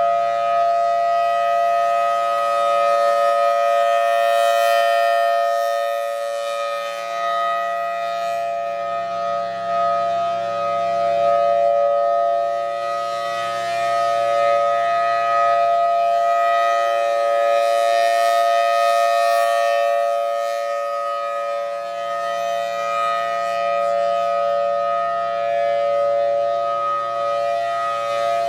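Federal Signal Thunderbolt 1003 storm siren sounding the steady-tone Alert signal during a monthly test. The pitch holds level while the loudness swells and fades about every 14 seconds as the rotating head sweeps past.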